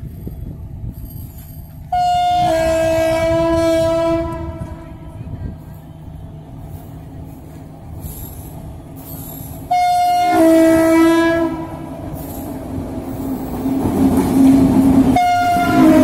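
WAP-7 electric locomotive's dual-tone horn sounding two blasts of about two seconds, each a short higher note stepping down to a longer lower one, with a third starting near the end. Underneath, the rumble of the approaching train grows louder as it reaches and passes.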